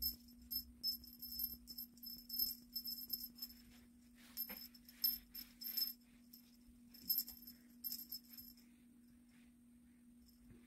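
Small jingle bell on a cat wand toy jingling in quick, irregular shakes as the toy is swung and batted at. The shakes come thick in the first six seconds and again around eight seconds, then die away.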